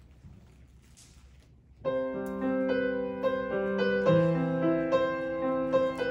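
Near-quiet room tone, then about two seconds in a grand piano starts playing: slow, sustained chords, with new notes coming in every half second or so.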